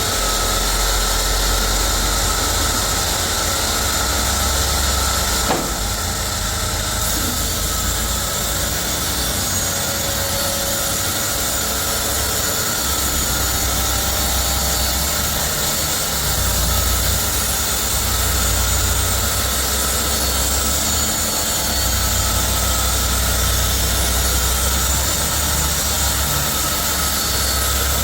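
Sawmill machinery running with a steady loud noise and a low rumble that swells and eases every few seconds, with a sharp knock about five seconds in.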